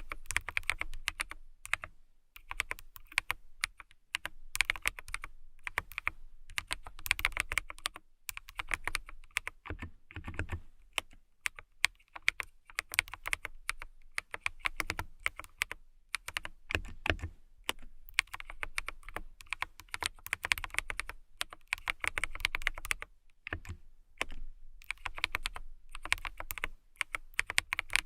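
Fingernails tapping rapidly on a hard surface, quick flurries of light clicks broken by short pauses.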